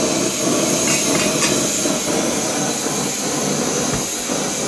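MSR WhisperLite Universal backpacking stove burning in liquid-feed mode, giving a steady, even rushing noise.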